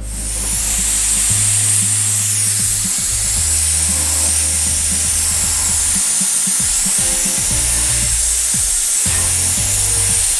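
Shark Steam Portable handheld steam cleaner jetting steam onto a gas stove burner: a steady high hiss that comes on suddenly and holds, over background music with sustained bass notes.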